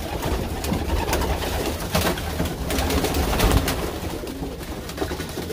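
Racing pigeons cooing in a wooden loft, with short flaps and clicks as a bird flies past, over a steady low rumble.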